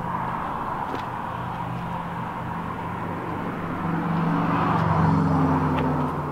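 Road traffic: a steady engine hum that swells as a vehicle passes about four seconds in, then eases off near the end.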